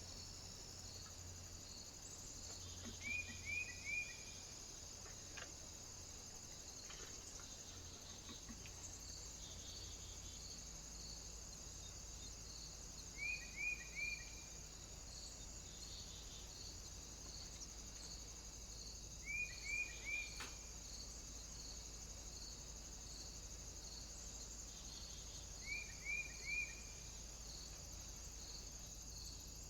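A bird calling in quick triplets of short, high, slightly falling notes, four times at intervals of about six to ten seconds, over a faint steady high whine and a soft regular ticking.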